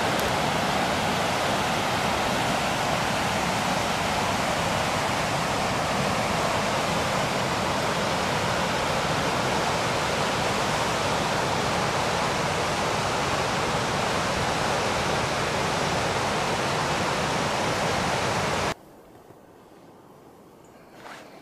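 Steady rush of the Katun River's fast, turbulent water over rocky rapids. It cuts off abruptly a couple of seconds before the end, leaving only a faint hush.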